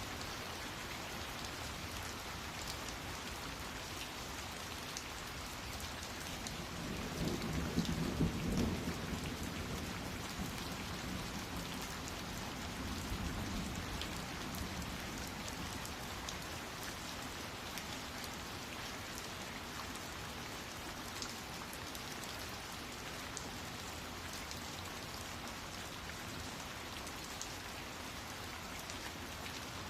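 Steady rain falling, with a low roll of thunder rising and fading about eight seconds in.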